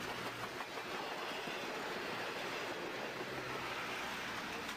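Passenger train coaches rolling past, a steady faint noise of wheels on the rails.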